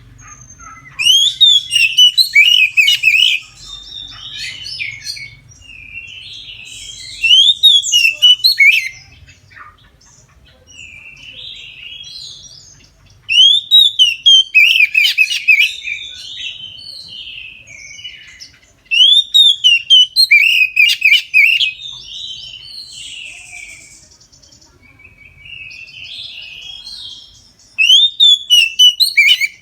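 Oriental magpie-robin (kacer) singing its full, open song: loud bursts of fast chirps and whistles, each two to three seconds long, come about every six seconds, with quieter warbling phrases between them.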